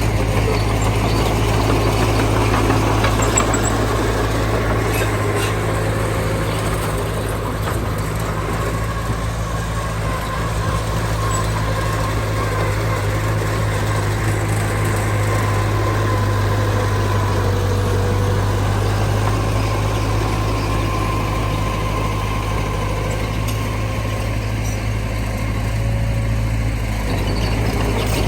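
Diesel engine of heavy earthmoving machinery, a dump truck or bulldozer, running steadily at low revs with a deep, even hum.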